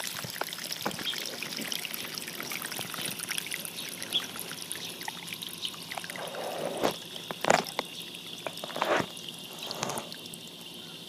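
Water trickling and running over wet sand, with a few sharper knocks about seven and nine seconds in.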